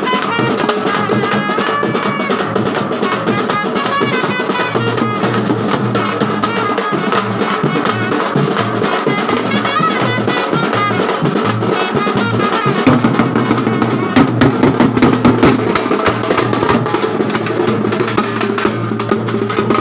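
A street band playing: a driving beat of snare and bass drums under a wavering melody from wind instruments, with heavier drumming about thirteen seconds in.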